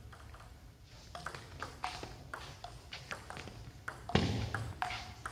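Table tennis rally: the celluloid-type ball clicking and pinging off the bats and the table in quick succession, several hits a second, with a louder thud a little after four seconds in.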